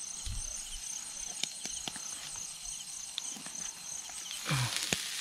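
Insects chirping in a rapid, even pulsing rhythm over light clicks. About four seconds in, a hiss of sizzling rises as basting oil drips onto the hot charcoal under the barbecue skewers.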